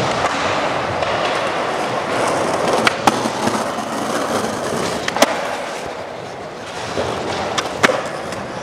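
Skateboard wheels rolling on a smooth concrete floor in a steady rumble, broken by a few sharp clacks of the board hitting the ground: about three seconds in, about five seconds in and near the end.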